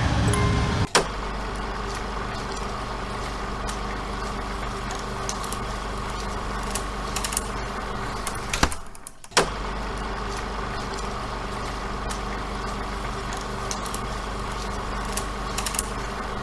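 Chime music stops about a second in, replaced by a steady low machine hum, like an engine idling, with faint ticks over it. The hum drops out briefly about halfway, with a click at either end of the gap.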